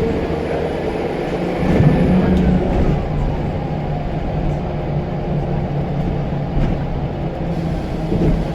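Scania L94UB bus's diesel engine running under way, with a turbo whistle that glides down in pitch about two to three seconds in.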